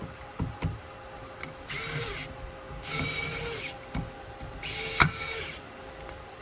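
Plumbing tool work on a faucet fitting: three short mechanical ratcheting or grinding bursts about a second apart, mixed with sharp metallic knocks. The loudest knock comes about five seconds in.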